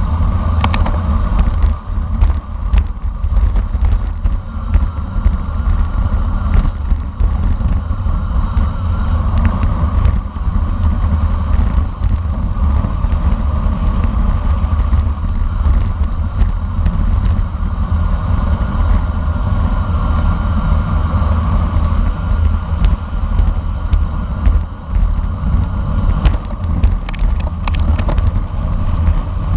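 Loud, steady wind rumble and tyre and road noise from a road bicycle ridden at race speed, with scattered short clicks.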